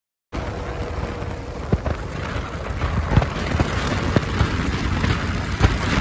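Wind buffeting the microphone on a moving motorcycle, a heavy low rumble over engine and road noise with scattered sharp knocks. It starts abruptly after a moment of dead silence.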